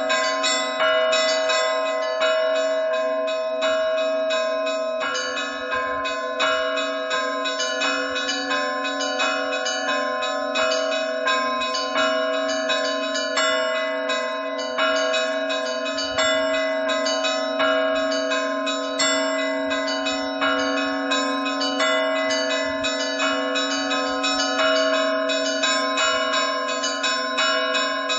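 Russian Orthodox church bells rung in a full peal (trezvon): small bells struck rapidly and without pause over the steady ringing of larger bells.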